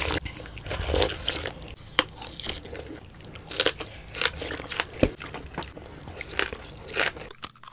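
Close-miked eating sounds: biting and chewing, with short sharp clicks and wet smacks.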